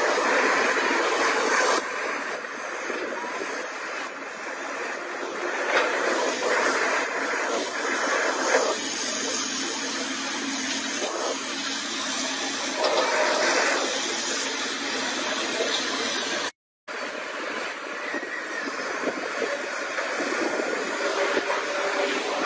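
Several Caterpillar hydraulic excavators working together, their diesel engines running under load with a steady mechanical din that swells and eases with the digging. The sound cuts out for a moment about three-quarters of the way through.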